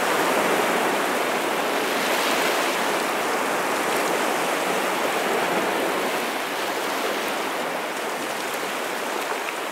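Steady rushing-water ambience, an even hiss with no swells, easing slightly near the end.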